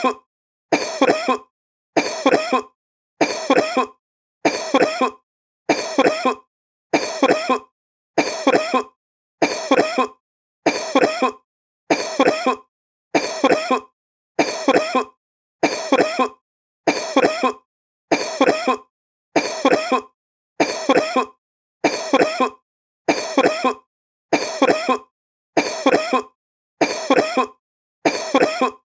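A sick man coughing: the same short burst of two or three coughs, repeated about once a second with brief silences between.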